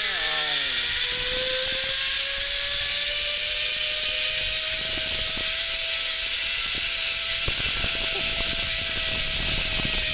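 Zip-line trolley pulleys running along a steel cable: a steady whir with a hiss, its pitch rising as the rider picks up speed, holding level, then dropping slightly near the end.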